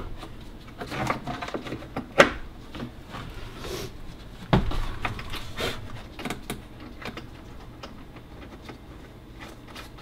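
Scattered clicks and knocks of gloved hands working behind a golf cart's plastic dash panel, fitting a replacement headlight switch. There is a sharp knock about two seconds in and a heavier thump about four and a half seconds in.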